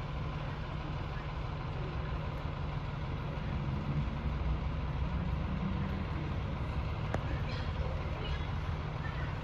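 Large truck engine idling, a steady low rumble.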